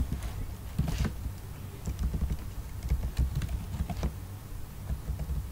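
Typing on a computer keyboard: a few separate keystrokes, spaced out, over a steady low rumble.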